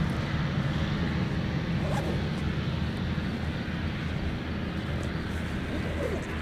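Avro RJ100's four turbofan engines running steadily as the jet taxis onto the runway: an even low rumble with a hiss above it.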